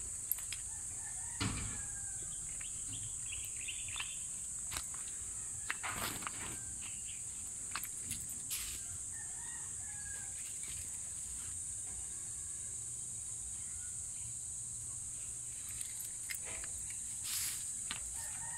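Steady high-pitched insect drone, with occasional crunching footsteps on gravel and faint bird calls, likely chickens.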